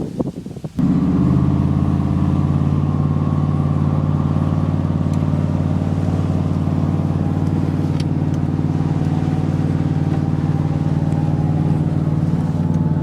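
Nitto Mud Grappler mud-terrain tires droning on a truck at steady road speed, heard inside the cab: a loud, steady, low hum that starts abruptly about a second in.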